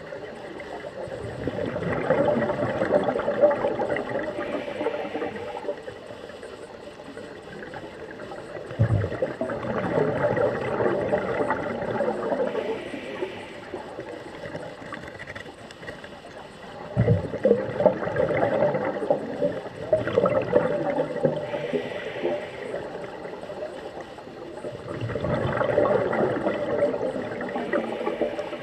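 Scuba diver's regulator breathing underwater. Four long exhalations of gurgling, crackling bubbles come about eight seconds apart, with a short hiss of inhaling through the regulator between them.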